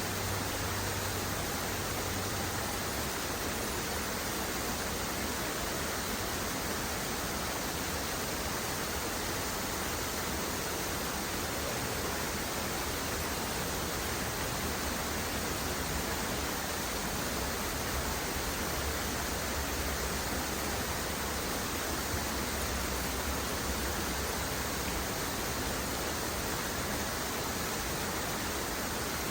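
Waterfall rushing: an even, unbroken noise of falling water.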